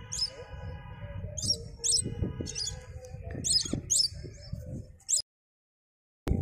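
Short, high bird chirps, repeated every half second or so, over a low rumble. The sound cuts off suddenly about five seconds in.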